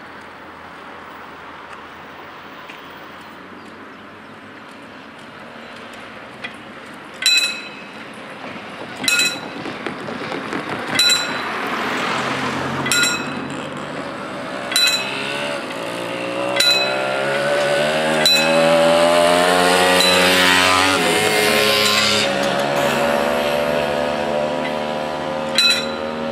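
Level-crossing warning bell sounding single ringing strokes about every two seconds, starting about a quarter of the way in, signalling that the barriers are about to lower. A motor vehicle's engine builds up in the middle and is loudest about two-thirds of the way through, partly covering the strokes.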